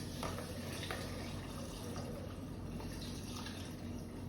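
Sachet water being poured into a container, a steady faint trickle with a few light drips.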